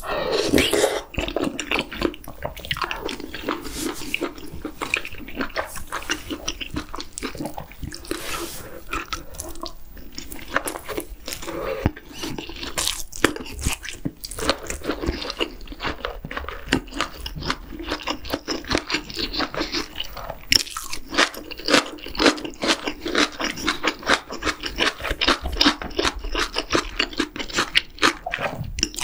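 Close-miked eating sounds of a person eating spicy octopus hot pot with chewy jjolmyeon noodles: slurping noodles and broth, then steady wet chewing with many quick smacks and crunches.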